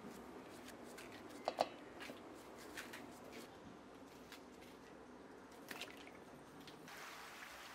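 Faint, scattered clicks and soft taps of a knife slicing peeled raw nendran plantain into small pieces, the pieces dropping into a steel bowl.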